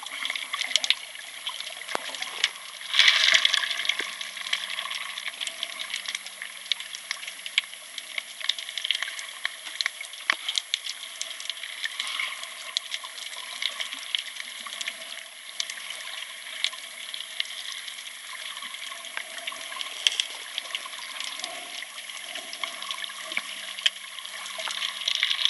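Underwater sound through a waterproof compact camera's microphone: a steady watery hiss full of small clicks and crackles, with a louder rush of water about three seconds in.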